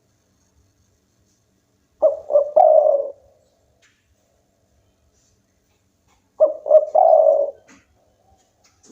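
Spotted dove cooing: two phrases about four seconds apart, each two short notes followed by a longer one.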